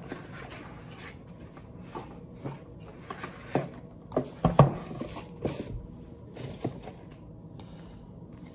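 Cardboard box and packaging being handled: a string of irregular knocks, taps and rustles as the lid flap is moved and the contents are lifted out, the loudest knock about four and a half seconds in.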